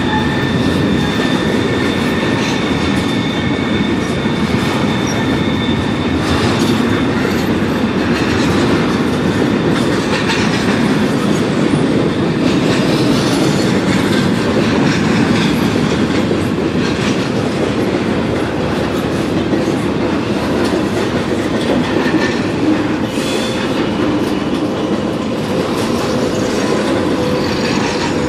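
Intermodal freight train passing close by: double-stack container cars and trailer cars rumble and clatter over the rails. A steady high squeal sounds through about the first six seconds.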